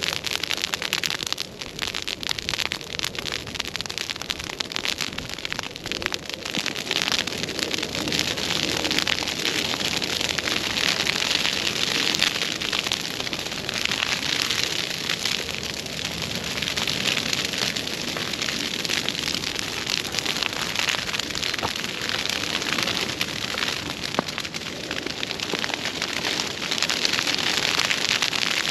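Dry broomsedge grass burning, a dense steady crackling that grows louder over the first ten seconds or so as the flames spread.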